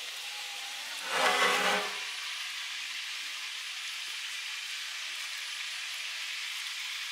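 Steady sizzling hiss of a pot of zarda sweet rice cooking over a fire. About a second in there is a short, louder pitched sound, like a brief voice.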